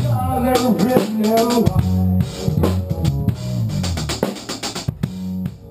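A small band playing funky jazz: electric bass guitar, keyboard and drum kit, with the music fading out toward the end.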